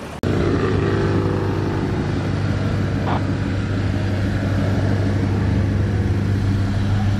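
Chevrolet Monte Carlo SS's engine idling, a low, even drone that eases down a little in pitch over the first couple of seconds and then holds steady.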